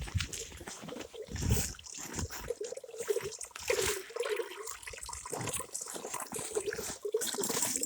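Water trickling and gurgling, with a bubbling tone that comes and goes, over scattered small crackles.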